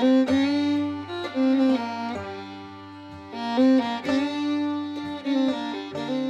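Instrumental background music: a melody of held notes moving every half second or so over a low steady bass note.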